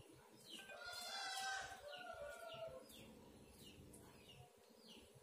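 Faint bird calls: a longer call about a second in, then short falling chirps repeating about twice a second.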